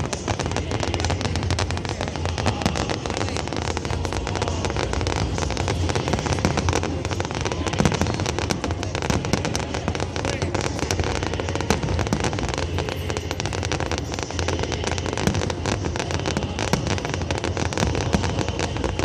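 Fireworks crackling continuously, a dense run of small pops with no pause, over a crowd's voices.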